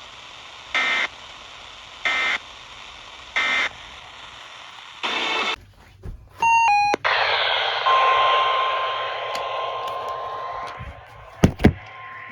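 Emergency Alert System data tones: three short, identical warbling bursts about a second apart, the end-of-message signal after a spoken warning, then a longer burst and a quick run of stepped beeps going down in pitch. Then a burst of static with a steady alert tone near 1 kHz, and two sharp clicks near the end.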